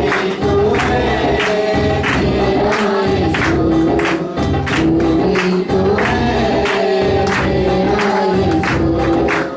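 Christian devotional song: group singing over a steady percussion beat and a heavy bass line that drops out briefly now and then.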